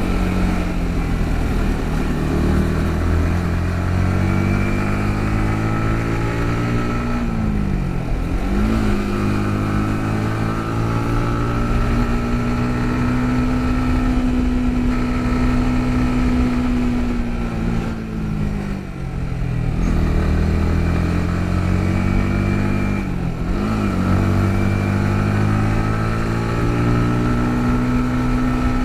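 Yamaha MT-15's 155 cc single-cylinder engine and exhaust heard from the saddle while riding. Its pitch climbs, holds and falls with the throttle. There is a quick dip and recovery about a quarter of the way in and again near the end, and a brief easing off about two-thirds through.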